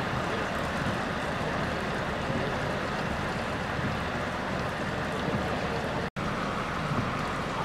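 Steady outdoor rushing noise with no distinct events, the kind made by wind, rain or traffic. It cuts out for an instant about six seconds in.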